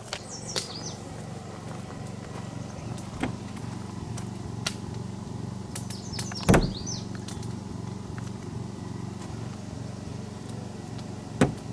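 A steady low mechanical hum, like a running motor, broken by several sharp knocks. The loudest knock comes about six and a half seconds in, with short high squeaks.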